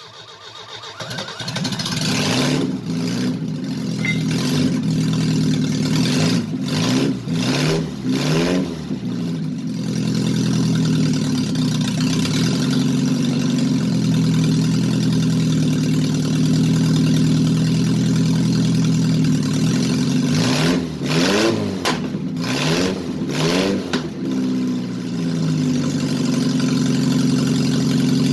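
The Mazda Rustler's replacement engine running after a fresh start while it is tested: it settles to a steady idle, is revved up and back down about a quarter of the way in, and again about three quarters of the way in, then idles steadily.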